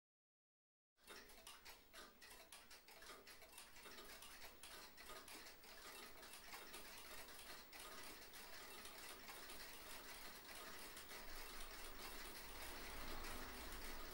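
About a second of silence, then a faint crackling hiss, thick with small clicks, that slowly grows louder.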